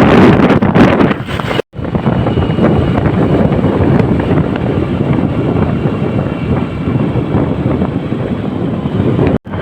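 Loud wind buffeting the microphone over a steady road rumble while travelling on a moving vehicle. The sound cuts out completely for a moment about two seconds in and again near the end.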